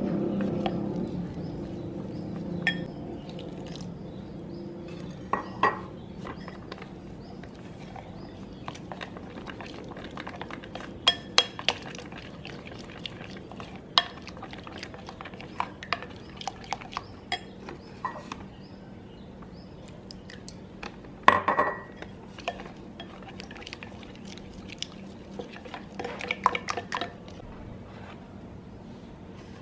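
A metal spoon stirs a flour-and-water batter in a glass bowl, with scattered sharp clinks of the spoon against the glass over a soft scraping. A few louder clinks come about a third of the way in and again past the middle.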